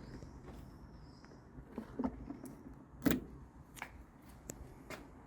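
Small handling clicks and knocks as scooter bodywork and loose parts are touched and moved by hand: a few scattered taps, the loudest about three seconds in.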